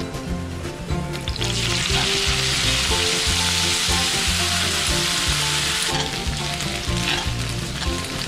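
Spaghetti and garlic sizzling loudly in hot olive oil in a frying pan, the hiss starting about a second and a half in and easing off after about six seconds, over background music.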